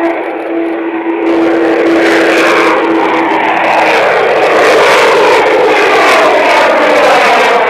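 Lockheed U-2's jet engine running at high power as the aircraft passes close by. The sound jumps louder about a second in and carries slowly falling, sweeping tones.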